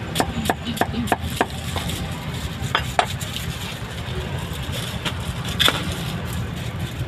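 Cleaver chopping roast meat on a wooden chopping block: a quick run of about six chops in the first two seconds, then a few single chops, over a steady low rumble.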